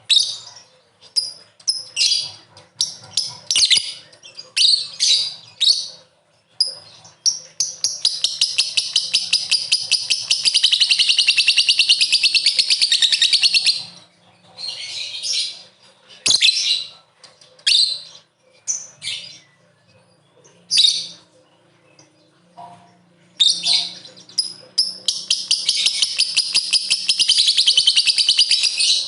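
Lovebird calling: short, sharp high chirps broken by two long runs of rapid, evenly pulsed chattering, one about six seconds long midway and another near the end. These long runs are the drawn-out "ngekek" song that lovebird keepers prize.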